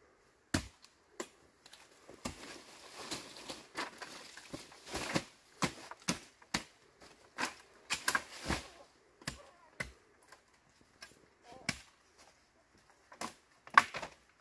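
Irregular sharp chopping knocks, about twenty strikes at uneven spacing, with a short pause partway through and the loudest strike near the end.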